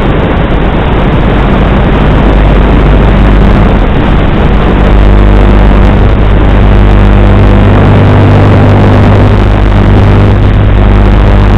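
Strong wind buffeting the microphone: a loud, steady rushing rumble with a low hum under it.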